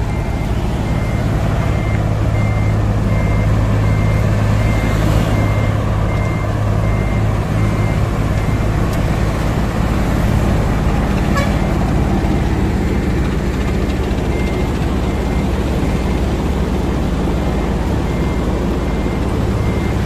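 Asphalt cold milling machine at work, its diesel engine running steadily under load while the cutting drum grinds up the road surface and the conveyor drops milled asphalt into a dump truck. A high warning beeper sounds in short, evenly spaced beeps over the machine noise.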